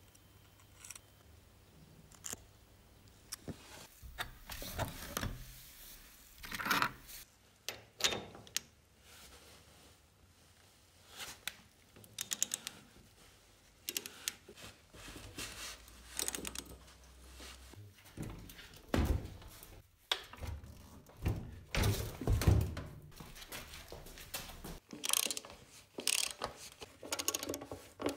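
Hand ratchet and socket clicking in quick runs as bolts on an old motorcycle are turned, with metal tools knocking and clinking against the frame in between.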